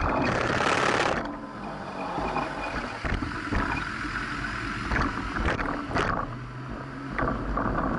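Bicycle ride through city traffic heard from a bike-mounted camera. A loud rush of traffic and wind fills about the first second, then drops to quieter road noise with scattered clicks and rattles from the bike.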